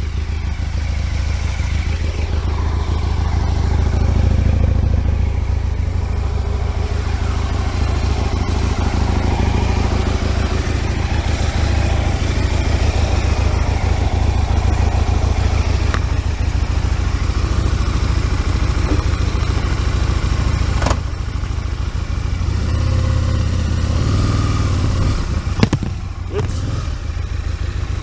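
Aprilia RSV Mille's V-twin running steadily while ridden, heard from the rider's position with the standard silencer fitted. About 21 seconds in the engine sound briefly dips, and there is a single sharp click a few seconds before the end.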